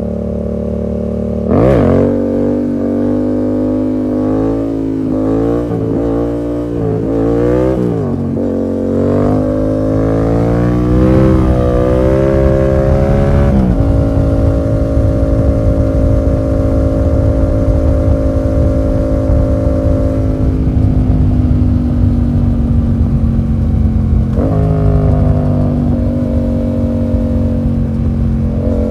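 Yamaha MT-07's 689 cc parallel-twin engine through a full SC Project exhaust with no dB killer. The revs shoot up and fall back quickly several times in the first seconds, then climb in stages until a sudden drop about 14 seconds in. After that the engine holds a steady pitch, with one brief rev near the end.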